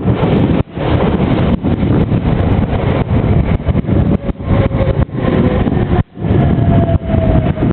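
Loud passing-vehicle noise with wind rumbling on the microphone, the level dropping out briefly a few times; a faint whine slides slightly down in pitch in the second half.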